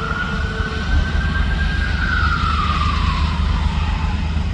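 Peterbilt McNeilus front-loader garbage truck's diesel engine running as it goes past, a deep steady rumble. Over it a single high whine rises slightly, then falls steadily in pitch over about two seconds and fades near the end.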